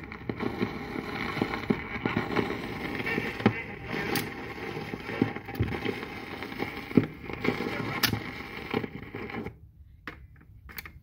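Dusty vinyl record playing on a mid-1970s Craig stereo's record changer through its speakers, sounding rough: dense crackle and pops from the dirty record surface. The playback cuts off about nine and a half seconds in, leaving only a few faint clicks.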